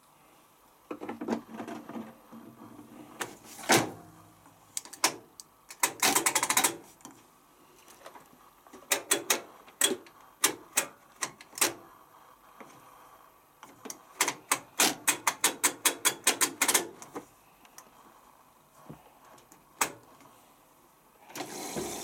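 Plastic clicks, knocks and rattles from handling a Candy C1040 front-loading washing machine's detergent drawer and controls. There is a dense rattle about six seconds in and a quick run of many clicks a little past the middle.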